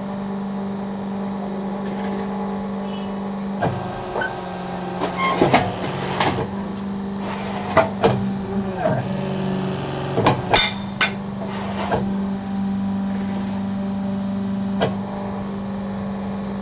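Fly ash brick machine's electric motor and hydraulic pump running with a steady hum, with sharp knocks and clatter from the press and mould work between about four and twelve seconds in.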